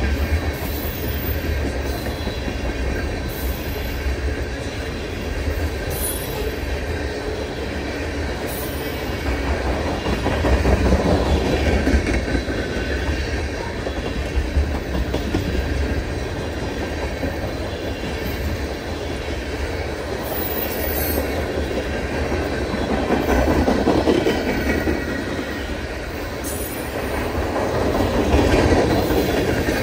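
Freight train rolling past: a continuous rumble of steel wheels on rail that swells and eases several times, with faint high-pitched wheel squeal over it.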